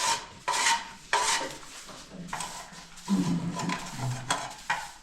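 Metal pots and dishes clattering and scraping against each other as they are handled and scrubbed, in a series of short, sharp strokes about a second apart.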